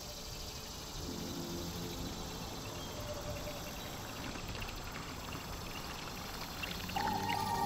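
Soft intro background music: faint held tones over a steady hiss, with a louder sustained note coming in near the end.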